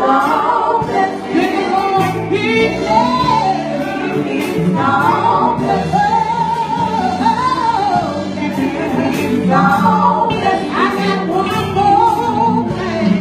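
A women's gospel vocal group singing together, the melody rising and falling without a break over a steady low accompaniment.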